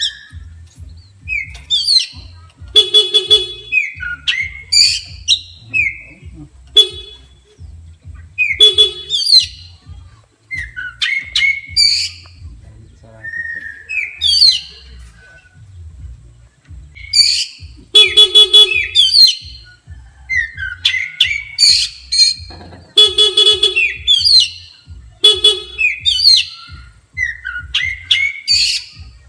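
Oriental magpie-robin (kacer) in agitated, aggressive full song: rapid varied whistles, pitch glides and chirps, broken by short, harsh buzzy notes every few seconds.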